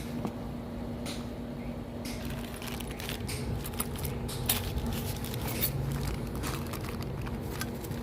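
Small hard objects being handled, with scattered clicks and rattles that come more often in the second half, over a steady low hum.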